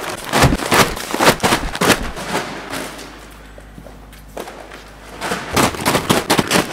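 Bags of seed corn being thrown into a pickup truck bed: a quick run of sharp thuds and rustles in the first two seconds, a lull, then another run near the end.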